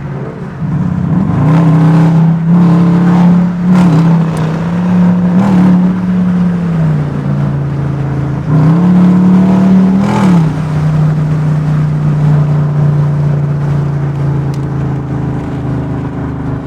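Dodge Durango R/T's V8 engine accelerating hard, its note climbing and then dropping at gear changes about seven and ten and a half seconds in, before settling into a steady cruise.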